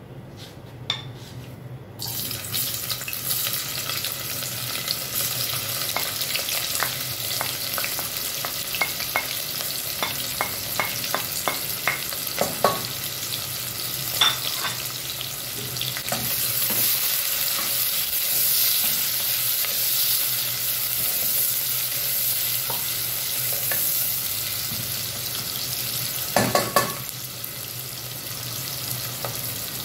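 Sliced onions sizzling as they fry in hot oil in an aluminium pressure cooker pot. The sizzling starts suddenly about two seconds in and grows denser about halfway through. Light clicks of stirring come in the middle, and a few louder knocks near the end.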